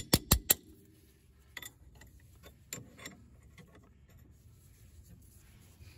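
Metal hand tools clicking against metal while working on the car's suspension: three quick, sharp clicks at the start, then a few faint taps.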